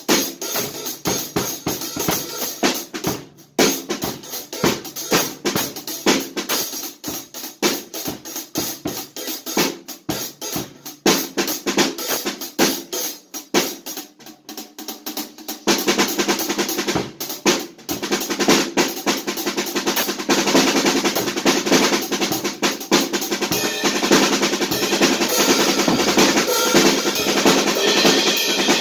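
Acoustic drum kit being played: separate drum strokes with short gaps at first, then about halfway through the playing turns denser and louder under a steady wash of cymbals.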